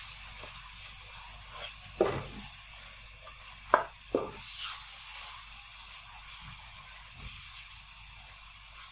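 Chicken keema frying in a pan with a little water, a steady high sizzle, with three sharp knocks about two seconds in and around four seconds in.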